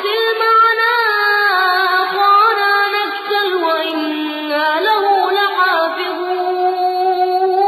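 A single voice reciting the Quran in slow, melodic tajweed, holding long notes and sliding between pitches without a pause.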